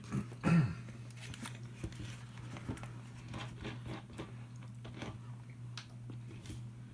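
People chewing chocolate cherry cordials: soft, scattered mouth clicks and smacks over a steady low hum, with a short vocal sound about half a second in.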